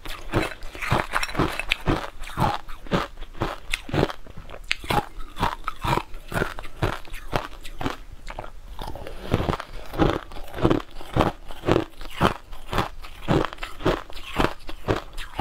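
Crushed sweet ice being bitten and chewed close to the microphone: a quick run of crisp crunches, several a second.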